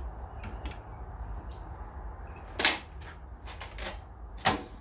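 Small metallic clicks and ticks as a tap in a drill press chuck is turned by hand in a soft brass MIG tip and then raised out of it, with two loud sharp clicks, one about halfway through and one near the end.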